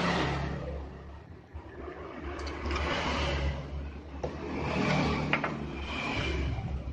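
Scraping and rustling as a thin wire is handled and pressed onto the audio-out terminals of a DIY MP3 player board, in uneven swells, with a sharp click about five seconds in and a steady low hum underneath.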